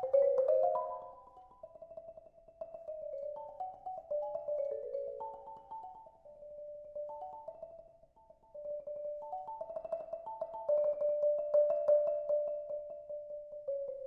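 Concert marimba played with two mallets: a flowing melody in the middle register built from quickly repeated mallet strokes. It softens almost to nothing about eight seconds in, then grows louder again.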